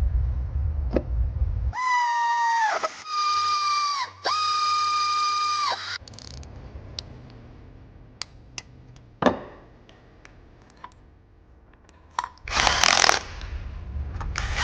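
An electric power driver whines in three short spurts, its pitch sagging as each one starts and dropping as it stops. Light metallic clicks and one sharp clank follow, with another short burst of tool noise near the end.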